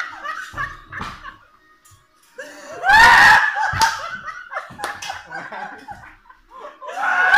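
Several men laughing hard, in bursts, with a brief lull and then a loud, high-pitched peal of laughter about two and a half seconds in, trailing off into smaller giggles.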